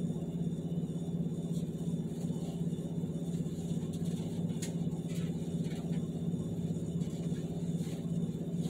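A steady low hum at an even level, with a few faint light clicks.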